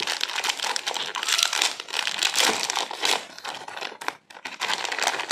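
Plastic anti-static shielding bag crinkling as it is handled and unfolded by hand, a dense irregular crackle that pauses briefly about four seconds in.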